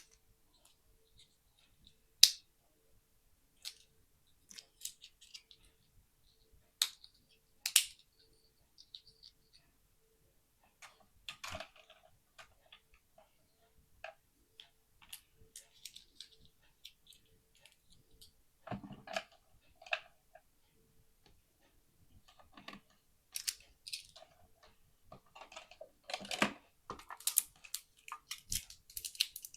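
Hands handling Zuru Mini Brands plastic capsules and their small packaging: scattered sharp plastic clicks and snaps, with bursts of crinkling that grow busier over the last few seconds.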